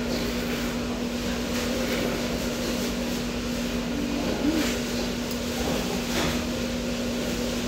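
Steady mechanical hum over a background of even noise, with a few faint clicks or taps scattered through it.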